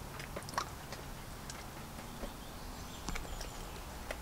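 Quiet eating sounds from a child at the table: a few faint, scattered clicks and mouth smacks over a low steady room hum.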